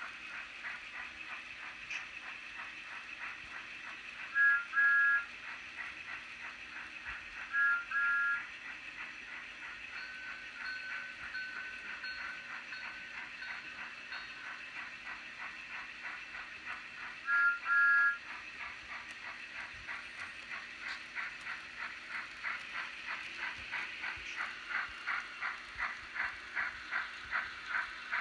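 Steam-locomotive sound effects from the LokSound decoder in an HO-scale Thomas the Tank Engine model, played through its small speaker: steady chuffing that speeds up and grows louder over the last several seconds. Three short two-tone whistle blasts sound, near the start, a few seconds later, and past the middle, with a run of short repeated tones in between.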